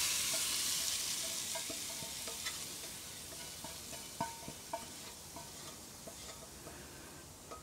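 Corn batter sizzling as it is poured into hot lard in a cast-iron Dutch oven, the sizzle fading away as the batter covers the fat. Light clicks of a utensil against the steel mixing bowl as the last batter is scraped out.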